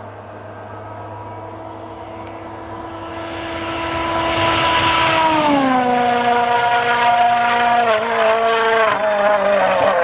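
A World Rally Car's turbocharged four-cylinder engine at high, steady revs grows louder as the car approaches flat out. About halfway through the pitch drops as it passes, and the note then wavers and dips as it pulls away.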